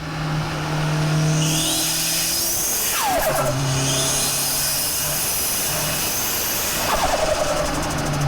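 Nissan Pulsar GTi-R's turbocharged SR20DET four-cylinder engine running, with a steady drone that shifts pitch now and then and a high hiss over it. Two quick falling whistles sound about three seconds in and again near seven seconds.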